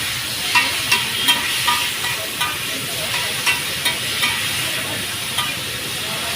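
Chowmein sizzling in a hot wok as it is stir-fried, with irregular sharp clinks of a metal spatula against the pan.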